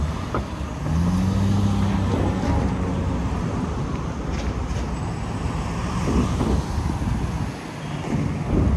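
City street traffic: vehicles running past on the road, with a low engine hum that sets in about a second in.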